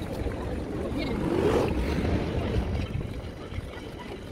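City street ambience sped up with the walking timelapse: a jumbled rumble of traffic with snatches of voices, and a brief rising-then-falling engine-like tone about a second and a half in.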